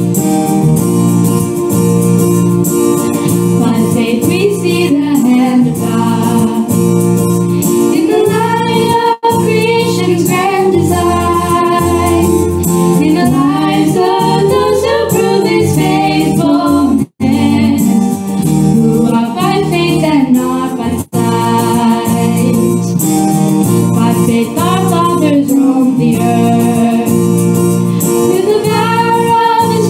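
A Christian worship song: singing over a steady instrumental accompaniment, with the sound briefly cutting out about 9 and 17 seconds in.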